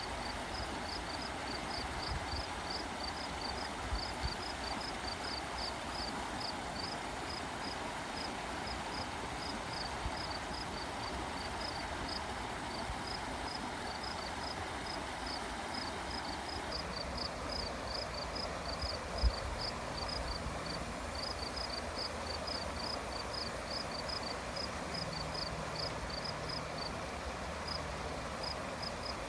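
Steady rush of flowing stream water, with a high, short chirp repeating about three times a second throughout, briefly pausing a couple of times. A single soft thump about two-thirds of the way through.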